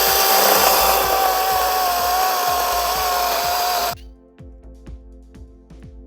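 A power tool's motor running at full speed with a steady high whine and hiss, cutting off abruptly about four seconds in. Music follows.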